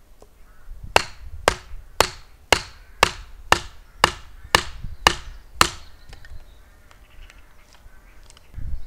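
Wooden club striking the back of a blade set into the end of a birch pole to split it: ten sharp knocks, evenly spaced at about two a second, each with a brief ring, then they stop about halfway through.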